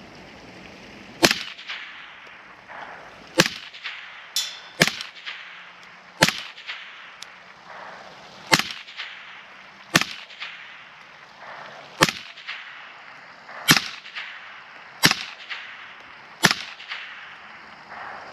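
Suppressed Kel-Tec P50 pistol in 5.7x28mm firing ten shots at a steady pace, about one every one and a half seconds. Each shot is a sharp crack with a brief trailing echo.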